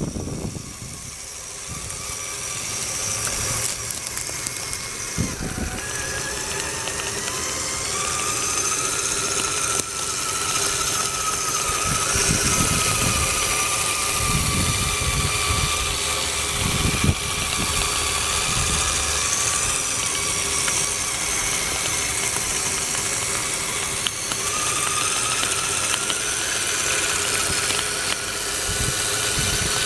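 Electric drive motor and gearbox of an Axial SCX10 Honcho RC crawler on Evo Predator tracks whining under load as it climbs a dirt hill, the pitch slowly rising and falling with throttle. There are a few low thumps along the way.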